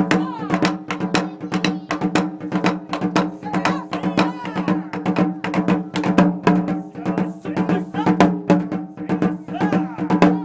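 Taiko drums: two players beating a large barrel-shaped taiko from both sides with wooden sticks in a fast, unbroken stream of strikes, the drum heads ringing under the beats.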